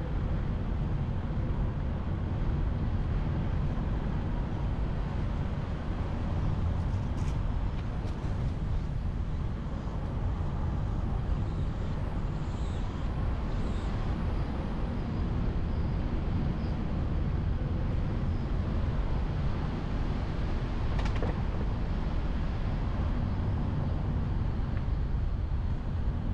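Steady low rumble of wind and road noise from a car driving, picked up by an onboard GoPro camera.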